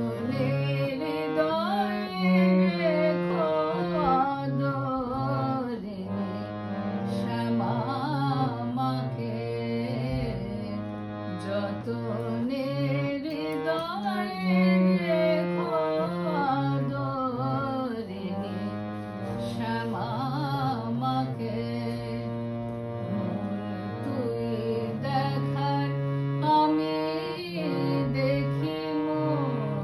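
Woman singing a devotional song to her own Sur-Taranga harmonium: the harmonium's reeds hold steady chords and drone notes under an ornamented, wavering vocal line.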